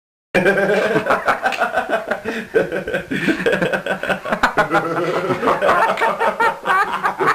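People laughing and chuckling, starting abruptly about a third of a second in after dead silence.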